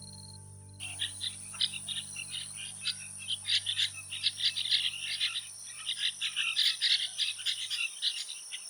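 A dense chorus of short, rapid chirping calls from animals, over a steady high-pitched insect drone, starts abruptly about a second in. Underneath, a held music chord fades out near the end.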